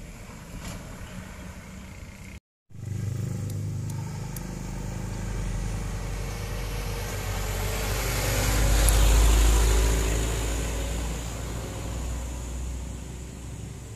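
A heavily loaded truck's engine running as the truck drives past. It grows louder to a peak about nine seconds in, then fades as it moves away, with tyre and road noise. The sound briefly cuts out about two and a half seconds in.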